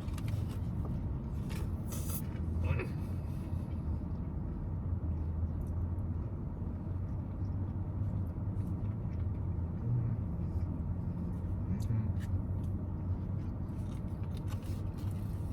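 Steady low rumble of a motor vehicle running, with a few light clicks and rustles near the start and again about twelve seconds in.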